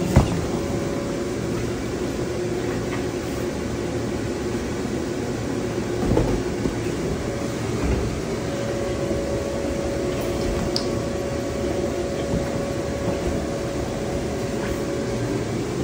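Electric blower of an inflatable bounce house running with a steady droning hum. A sharp knock comes right at the start and a dull thump about six seconds in.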